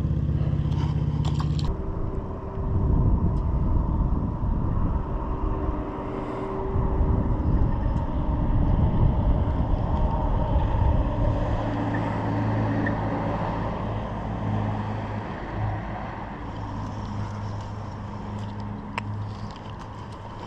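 Boat motor running: a steady low hum that turns rougher and uneven about two seconds in, then settles back into a steady hum about halfway through and fades slightly near the end.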